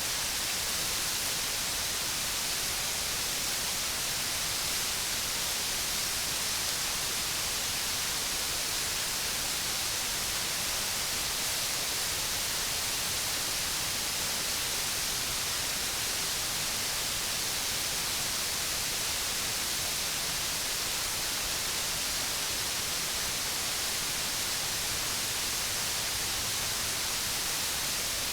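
A large waterfall's steady rush of falling water: an even, unbroken hiss that doesn't change.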